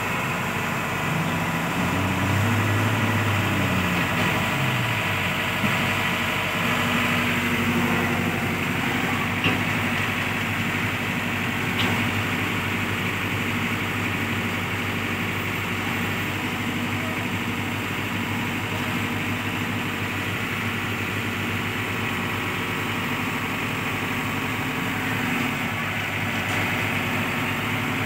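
Hyundai compact excavator's diesel engine running as the machine tracks onto a truck bed, its pitch rising and falling for the first few seconds, then running steadily. Two sharp clanks come about ten and twelve seconds in.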